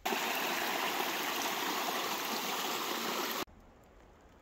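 A steady rushing noise that starts suddenly and cuts off abruptly about three and a half seconds in.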